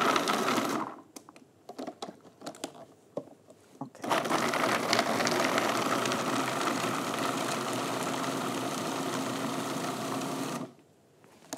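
Food processor motor chopping soaked almonds and green olives. A short burst at the start, then a few seconds of light clicks, then it runs steadily for about six seconds and cuts off shortly before the end.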